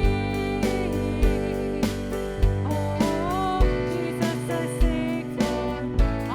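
Worship band music with a steady drum beat about every 0.6 s under sustained chords and a gliding melody line.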